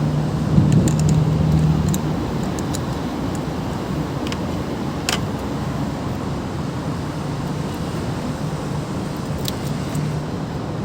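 Steady motor-vehicle hum with a low drone that swells during the first two seconds, and a few light clicks, the clearest about five seconds in.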